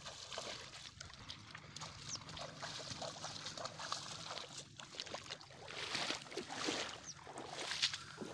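Cattle hooves splashing through shallow water and mud, a run of irregular splashes and steps that grows busier a few seconds in.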